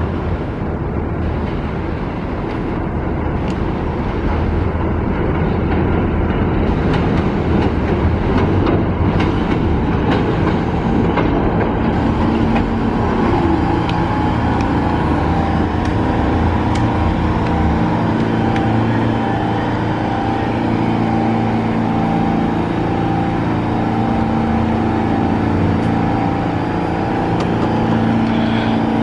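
New York City subway train running with a continuous rumble of wheels on rail. About twelve seconds in, a set of steady humming tones joins the rumble and holds.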